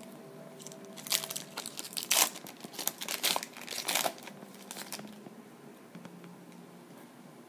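A trading-card pack's wrapper being torn open and crinkled: a burst of crackling about a second in that lasts roughly four seconds, then dies down.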